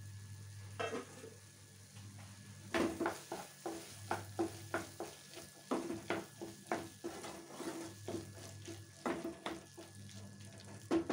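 A spatula scraping and stirring green peas through thick tomato-onion masala in a frying pan as they fry in it. It makes a run of short scrapes, about two a second, starting about three seconds in.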